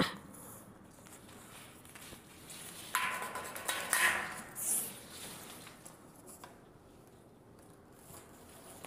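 Rustling and scraping of a white plastic flexible conduit being handled and fed over wiring, with a sharp click at the start and a louder stretch of scraping about three to five seconds in.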